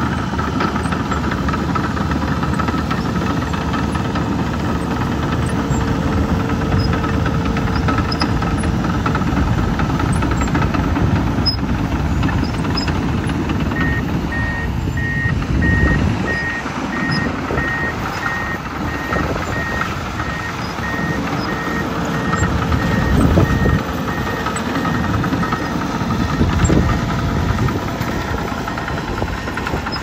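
Komatsu D51PXi crawler dozer's diesel engine running steadily under load as it pushes and grades dirt. Partway through, a backup alarm sounds a long run of evenly spaced beeps for about twelve seconds.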